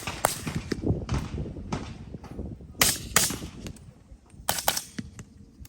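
Suppressed rifle shots: about eight sharp cracks at irregular spacing, some in quick pairs.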